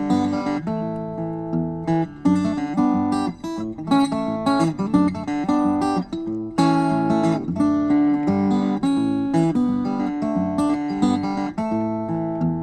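Solo steel-string acoustic guitar playing an instrumental piece, single picked notes and strummed chords ringing on.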